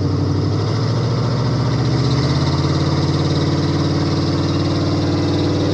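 Chevy square-body tow truck's engine idling steadily.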